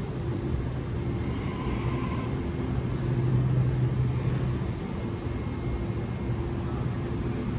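Sydney Trains Waratah B-set double-deck electric train rolling slowly along the platform. Its running gear gives a steady low hum and rumble that swells slightly midway.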